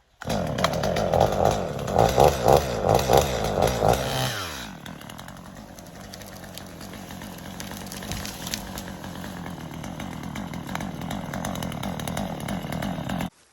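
Chainsaw cutting at full throttle, its engine note pulsing under load for about four seconds. The revs then drop away, and the saw runs on at a lower level until the sound cuts off abruptly near the end.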